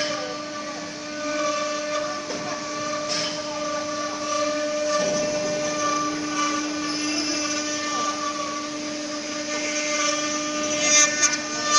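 4-axis CNC wood router at work: the spindle gives a steady high whine with overtones, over the rasping noise of the bit cutting wood, with a few short louder surges near the end.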